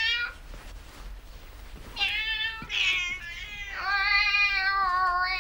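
Siamese cat meowing, traded with a woman imitating its calls back to it: two short meows about two seconds in, then one long drawn-out meow.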